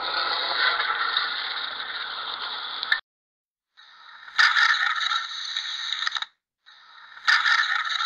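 Camel vocalising: a rough, noisy call of about four seconds that stops abruptly, then two shorter calls that are nearly identical, each turning loud partway through.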